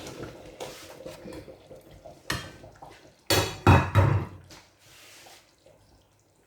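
Clatter of kitchen things being handled: a sharp knock about two seconds in, then a loud cluster of knocks and rustling a second later, fading to quiet.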